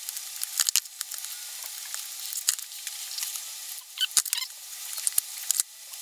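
Irregular small metallic clicks and taps from hand-fitting a washer and split pin onto a Morris Minor handbrake cross piece, over a faint hiss.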